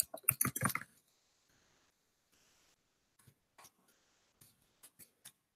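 Computer keyboard typing: a quick run of key clicks in about the first second, then a few scattered single keystrokes.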